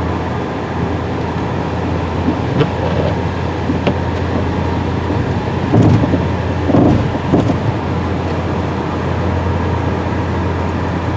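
Steady in-cabin noise of a car driving on the highway: a low engine and road drone with tyre noise, with a couple of brief swells about six and seven seconds in.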